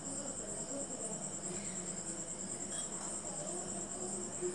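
Cricket chirping in a steady, high, finely pulsing trill.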